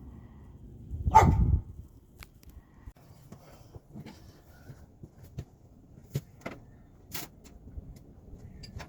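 A dog barks once about a second in, followed by scattered light clicks and taps.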